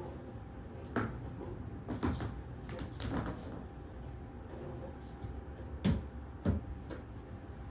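Objects being handled and set down: a few separate knocks and clunks, the sharpest two about six seconds in.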